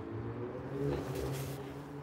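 Heavy lorry's diesel engine idling with a steady low hum.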